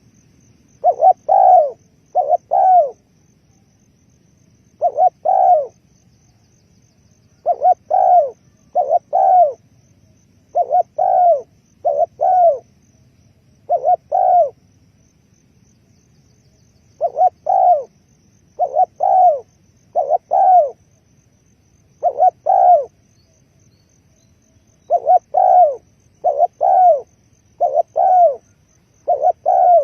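Spotted dove cooing: short, hoarse coo notes in groups of two or three, repeated every few seconds.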